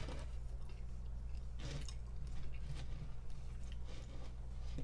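Mouth chewing mac and cheese pizza close to the microphone, with a few separate wet smacks, over a steady low hum.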